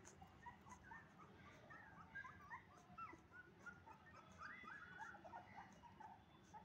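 Young puppies faintly whimpering and squeaking: many short, high squeaks one after another, busiest about four to five seconds in.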